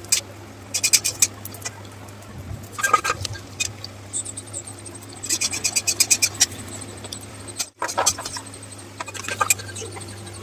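Kitchen cooking sounds: short runs of rapid light taps, three times, over a steady low hum.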